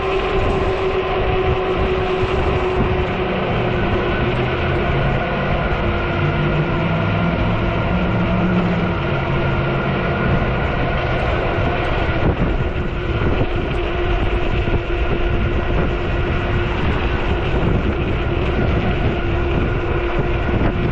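Riding noise of a 48-volt fat-tire e-bike: the electric motor's steady whine over tyre hum, with wind rumbling on the microphone.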